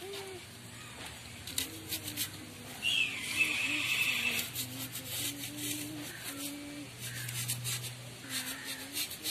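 Snap-off utility knife blade drawn through a thermocol (expanded polystyrene) sheet along a steel ruler: scratchy, crackling cutting strokes, with a louder high squeak of the blade in the foam about three seconds in.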